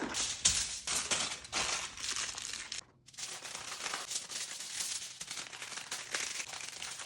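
Plastic bag crinkling and rustling as it is handled, with a brief break about three seconds in.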